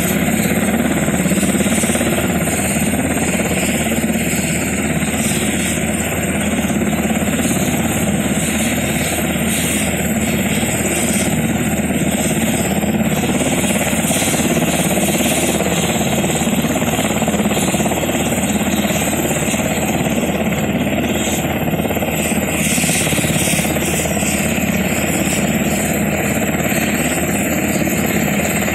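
UH-60 Black Hawk helicopter running steadily on the ground at idle, its twin turboshaft engines and turning main rotor making a loud, even noise.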